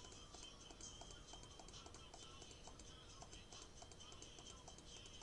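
Faint computer mouse clicks at an even pace, about three a second, from placing the points of polygonal lasso zigzags, with faint background music.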